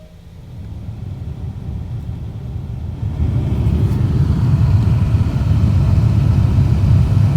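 Newly fitted climate-control blower fan of a Toyota Crown GXS12 spinning up: a rush of air that grows louder, steps up about three seconds in, then runs steadily at high speed.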